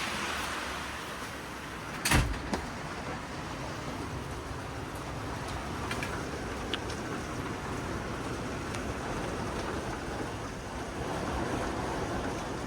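Steady rain falling during a thunderstorm, an even hiss with a single sharp thump about two seconds in.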